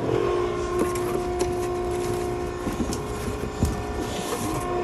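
Maren cardboard baler's hydraulic power unit running with a steady hum, with scattered small clicks and knocks.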